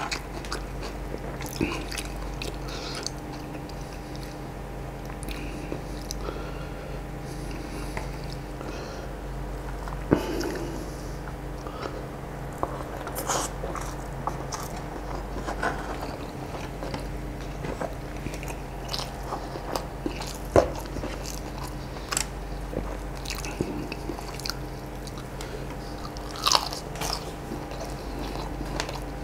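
Close-miked chewing and mouth sounds of a person eating rice and fried chicken with sambal by hand, with many short wet clicks and a few crunches. A steady low hum runs underneath.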